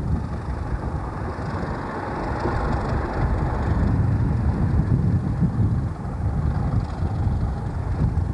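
Class 31 diesel-electric locomotive's English Electric engine running, a steady low rumble that is a little louder around the middle.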